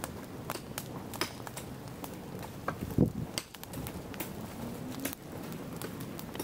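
Dry grass burning in a clay pot stove, crackling with quick irregular snaps and pops. One louder dull thump about three seconds in.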